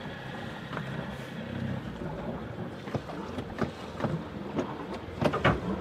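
Light wind and water noise aboard a sailboat, with scattered sharp clicks and knocks of gear being handled in the cockpit, the loudest two close together near the end.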